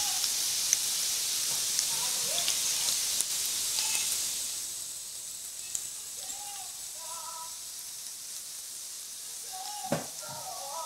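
Chopped onions sizzling and crackling in hot oil in a frying pan, being fried down. The sizzle drops to a quieter, softer hiss about four seconds in, and a single knock sounds near the end.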